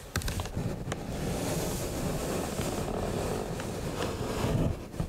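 Plastic display base of a model bus scraping across a tabletop as it is turned by hand: a steady rubbing noise, with a few light clicks near the start.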